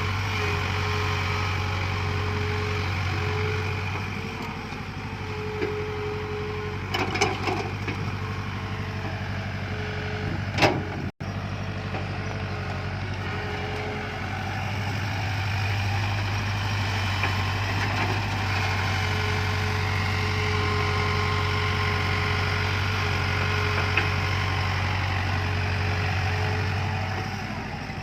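JCB backhoe loader's diesel engine running steadily while it digs, easing off for several seconds and then picking up again. A few sharp knocks come through about seven and ten seconds in.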